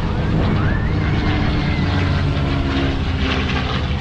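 P-51D Mustang's Packard-built Merlin V-12 engine and propeller droning steadily as the fighter flies past, the pitch sinking slightly as it goes by.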